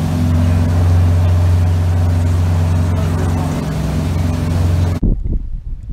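Charter boat's engine running steadily at cruising speed, a loud low drone with the rush of the wake and wind over it. About five seconds in it cuts off abruptly, and irregular low bumps and rushes follow.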